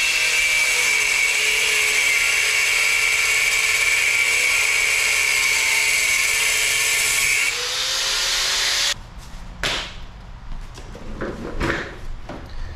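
Handheld grinder with a cut-off disc cutting a notch into a KTM 50 mini dirt bike's metal frame: a loud, steady high whine with a grinding hiss. The whine changes and eases about seven and a half seconds in and stops suddenly about nine seconds in. A few clicks and knocks of tools being handled follow.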